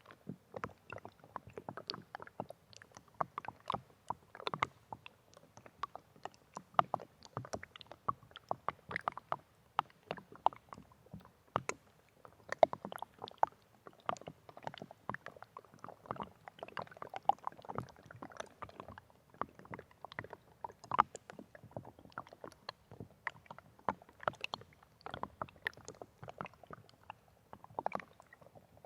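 Running water making a dense, irregular patter of small plops, blips and gurgles, several every second, with no steady rush underneath.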